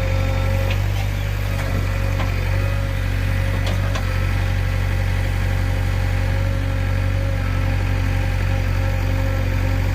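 JCB 3DX backhoe loader's diesel engine running steadily with a deep hum, with a few light clicks in the first four seconds.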